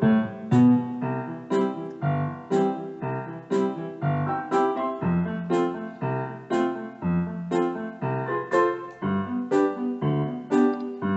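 Background piano music, notes struck at a steady pace of about two a second over held bass notes.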